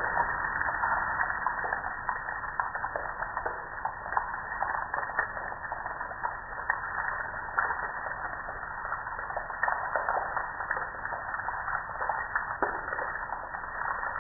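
Dense, irregular crackling and ticking of wet soap foam and dripping water on a gas grill.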